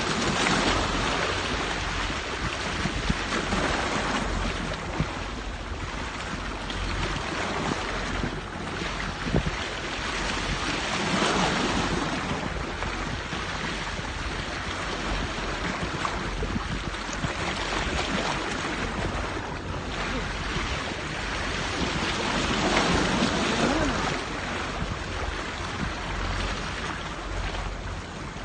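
Sea waves washing against a rocky shore, swelling and easing several times, with wind rumbling on the microphone.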